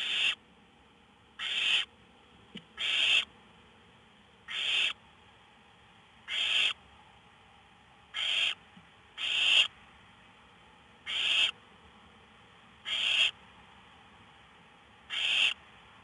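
Barn owl chicks giving their hissing, snore-like begging calls: about ten harsh hisses, each under half a second long, repeating every one and a half to two seconds.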